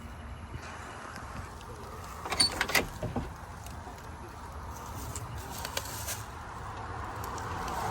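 A quick cluster of sharp clicks and knocks, with a brief metallic ring, about two and a half seconds in, over a low steady rumble.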